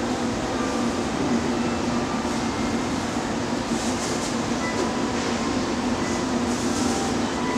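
Steady low hum of a train standing at the station platform, with faint short noises over it.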